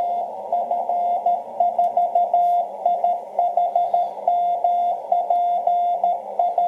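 Morse code received on a shortwave ham transceiver: a single steady beep tone keyed on and off in dots and dashes over a narrow band of receiver hiss.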